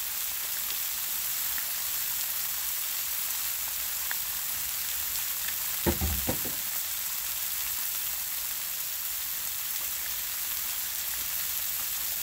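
Chicken thighs and buttered green beans frying on a Blackstone steel flat-top griddle: a steady hiss of sizzling. About halfway through come two or three brief knocks.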